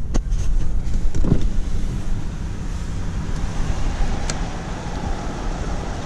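Car running at low speed, heard as a steady low rumble, with a couple of short clicks in the first second or so.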